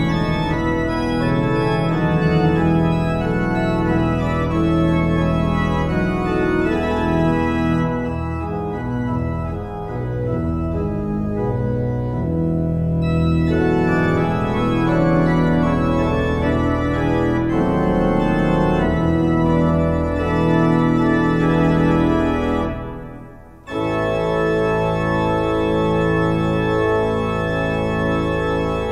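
Church pipe organ playing full, sustained chords. About 23 seconds in the sound cuts off briefly, then a new held chord comes in.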